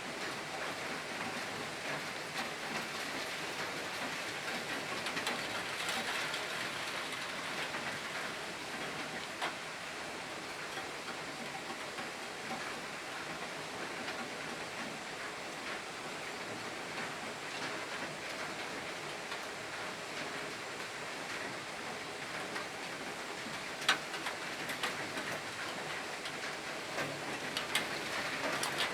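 Steady rain falling, an even hiss with scattered drops ticking on a surface and a few sharper drip ticks near the end.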